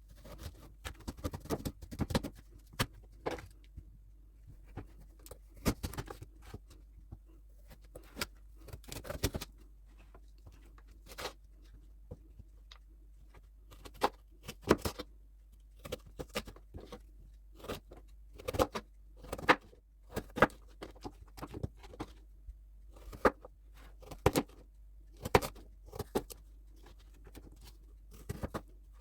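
Irregular clicks, taps and knocks of kitchen utensils and containers being handled while an herbal tea is prepared, some sharper than others, over a faint steady hum.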